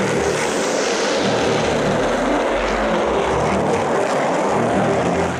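Skateboard wheels rolling over rough pavement: a loud, steady, grinding rumble.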